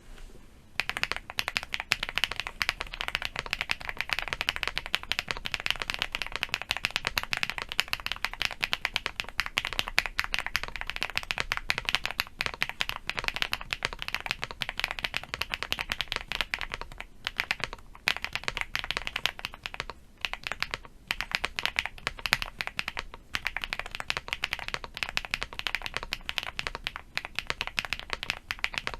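Fast, continuous typing on a LEOBOG Hi75 75% mechanical keyboard with MZ Z1 switches and Aifei Wavez ABS double-shot Cherry-profile keycaps, in a foam-dampened case. The keystrokes are dense and rapid, with a few brief pauses in the second half.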